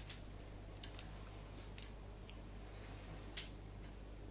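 A few faint, irregular small clicks as the screws of the scope mount rings are tightened, over a low steady hum.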